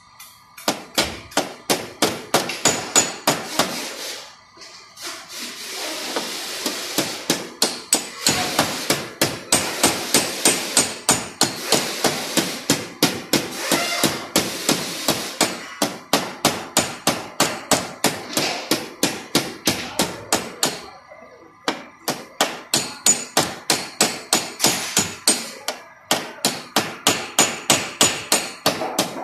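Paintless dent repair tap-down: a small hammer lightly and rapidly striking a tape-wrapped tap-down punch held against a car's painted body panel, knocking down high spots in the dent. The taps come in quick runs of about three to four a second, with brief pauses.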